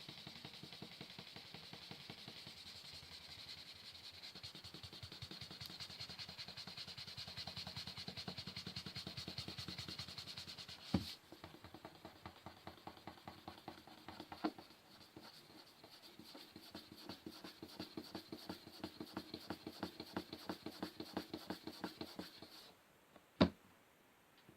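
Fingers rubbing and scratching rapidly back and forth on a wooden surface, in a fast, even rhythm that changes character about halfway through and stops shortly before the end. Three sharp clicks stand out, one about halfway through, one a few seconds later and the loudest near the end.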